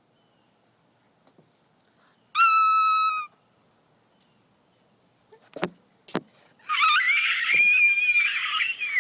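Girls making silly noises with their voices: a high squeal held for about a second, then, after two clicks, a long, loud, shrill warbling shriek.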